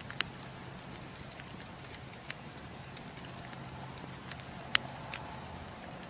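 Wood fire burning in a fireplace, crackling with a few scattered sharp pops at irregular intervals, the loudest pop a little before the end, over a steady low hum.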